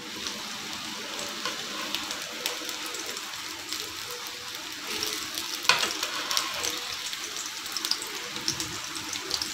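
Chicken seekh kababs sizzling in a little oil in a nonstick frying pan on low flame: a steady hiss with fine crackles. Metal tongs click sharply once about halfway through as they lift the kababs.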